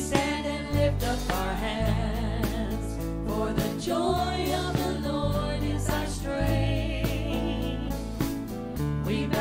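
Live church praise band playing a contemporary worship song: several voices singing together over acoustic guitars, electric bass and a drum kit keeping a steady beat.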